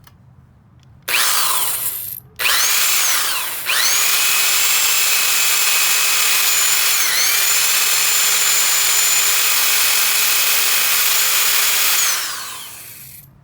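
Old electric drill spinning the pulley of a removed car alternator to test its bearings. The drill starts about a second in, stops briefly, then starts again with its motor whine rising as it spins up. It runs steadily with one short dip in pitch midway, then winds down near the end. The drill does not turn the alternator many revolutions.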